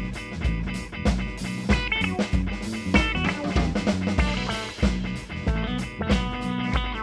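Live instrumental rock trio: electric guitar playing quick lead runs over bass and a drum kit keeping a steady beat.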